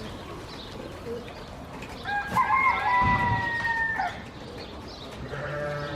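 A rooster crowing once: a single call about two seconds long, starting about two seconds in, its pitch sagging slightly toward the end.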